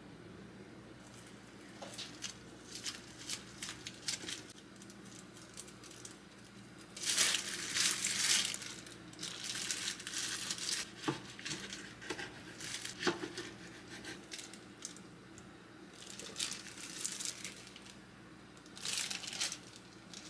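Crinkly packaging being handled, rustling and crinkling in uneven bursts, loudest about a third of the way in and again near the end. A couple of light knocks fall in the middle, over a steady low hum.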